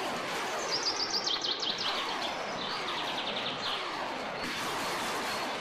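Steady outdoor background noise with small birds chirping: a run of quick, high repeated chirps about half a second in and another around three seconds in.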